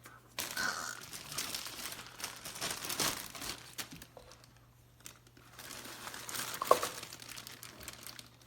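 Wrapping or filter material crinkling and rustling as it is handled during an air-filter change, in several bouts with a short lull midway, and a sharp click a little after the middle.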